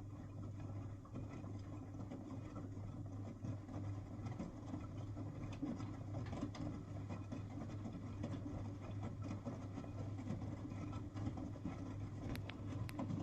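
V-Zug Adora SLX 258 washing machine running: a steady low hum with a rough, rattling noise over it. A few sharp clicks come near the end.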